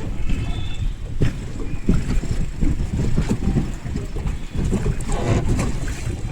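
Wind buffeting the microphone aboard a small sailing boat, a heavy steady rumble, with a few short knocks or splashes.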